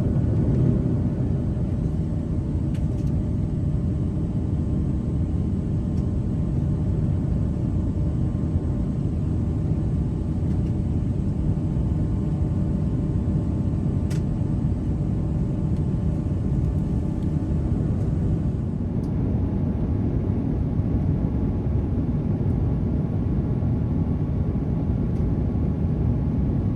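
Steady rumble of airliner cabin noise inside an Airbus A350-900, engine and airflow noise with a faint steady hum.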